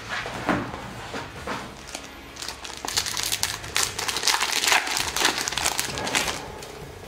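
Foil trading-card booster pack being torn open, its wrapper crinkling densely for a few seconds in the middle after some lighter rustles of handling.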